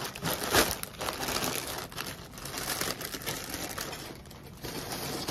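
Plastic poly mailer bag crinkling and rustling as it is handled, in a run of short crackles.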